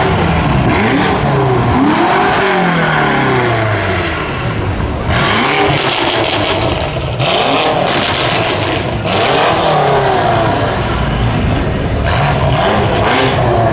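BMW M5 F90's twin-turbo V8 through a catless Fi exhaust, revved again and again: the pitch climbs and falls with each rev. Harsh, crackling stretches come from about five seconds in.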